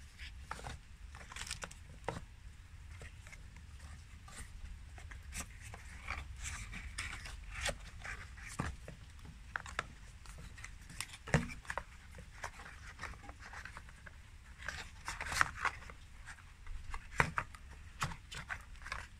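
Cardboard and paper packaging being handled: irregular rustles, scrapes and clicks as leaflets are moved and headphones are worked out of a cardboard insert, with louder knocks about 11, 15 and 17 seconds in, over a faint low rumble.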